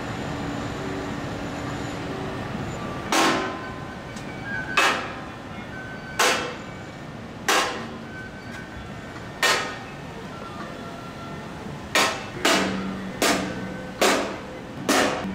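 A series of about eleven sharp strikes, each ringing briefly, spaced a second or two apart at first and coming faster in the last few seconds.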